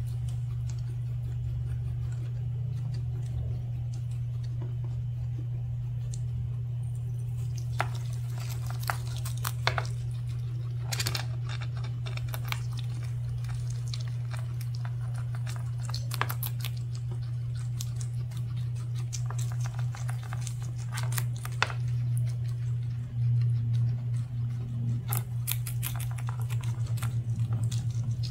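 Two guinea pigs chewing and snipping feathery tong ho (garland chrysanthemum) greens: clusters of quick, sharp clicks of teeth cutting stems, starting about eight seconds in, over a steady low hum.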